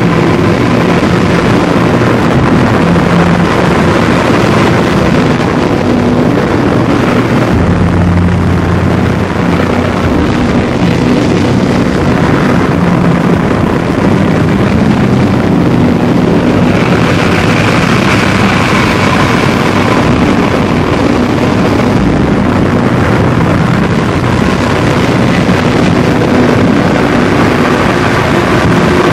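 Loud, dense wall of distorted droning noise with held low tones that shift every few seconds, from a noise or drone music track.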